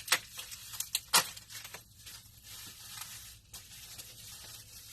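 Hands handling and unpacking small items from a box: three sharp clicks or knocks in the first second and a half, then soft rustling of packaging.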